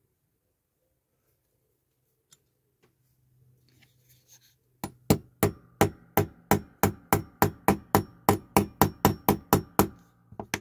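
Small hammer tapping on a die-cast toy's wheel and axle. There are about twenty light, quick blows at a steady four or so a second, each with a short metallic ring, starting about five seconds in.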